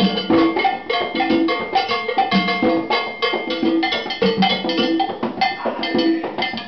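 Salsa music played live, led by congas and other hand percussion, a dense, steady rhythm of drum strokes.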